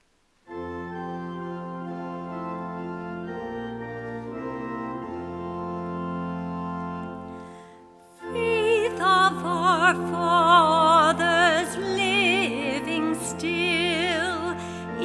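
Church organ plays the introduction to the opening hymn in sustained chords, fading out briefly about eight seconds in. The organ then resumes, and a woman's solo voice sings the hymn over it with vibrato.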